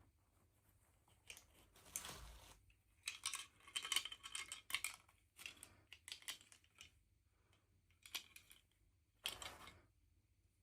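Close-up handling of packaging and small plastic pieces: irregular crinkles, rustles and light clicks, busiest in the middle, with a longer rustle about two seconds in and another near the end.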